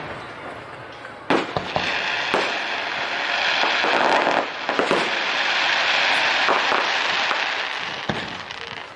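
Aerial fireworks shells bursting with several sharp bangs, the first about a second in. From about two seconds in, a dense crackling hiss from the bursts runs for several seconds and fades near the end.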